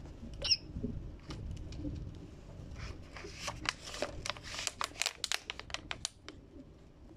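Thin plastic water bottle crinkling and crackling in a rapid run of clicks as a hand grips and lifts it, from about three seconds in until just before the end. A short chirp from an African grey parrot about half a second in.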